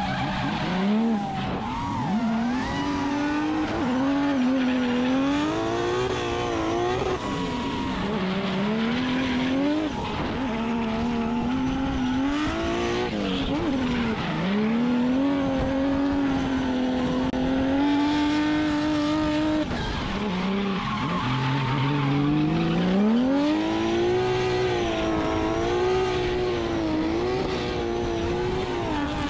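Drift car engine held at high revs, its pitch swinging up and down as the throttle is worked through a long smoky slide, with the rear tyres squealing and skidding.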